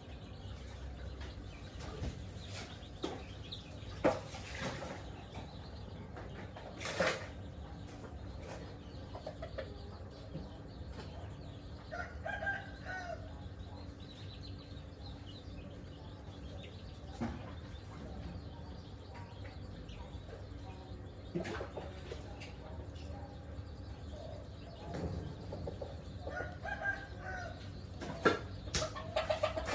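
Chickens clucking at intervals, with a few brief noisy bursts, the loudest about four and seven seconds in, over a steady low hum.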